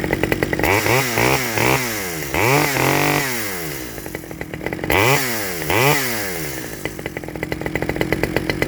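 Stihl 009L two-stroke chainsaw idling and being blipped up to revs: a run of about four quick throttle blips with a longer one, dropping back to idle, then two more quick blips. Its running on the standard single-screw carburettor doesn't sound good to the owner, who expects to adjust it.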